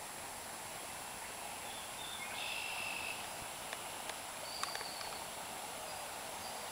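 Faint rural outdoor ambience with a steady hiss. A short rising whistled bird call comes about two seconds in and a brief high note near the middle, with a few light clicks in the second half.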